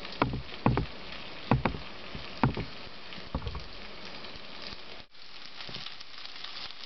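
Starch-coated rolls of sliced pork around tofu frying in hot oil in a frying pan: a steady sizzle, with several light knocks in the first three and a half seconds as the rolls are set down in the pan.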